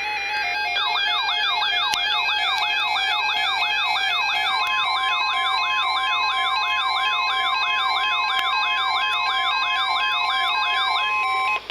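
Electronic emergency siren in a fast yelp, rising sweeps about two and a half times a second, over background music. A steady high tone joins about four and a half seconds in, and both stop shortly before the end.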